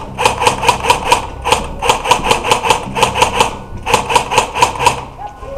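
Airsoft gun firing quick, even shots at about six a second, in four bursts with short pauses between them.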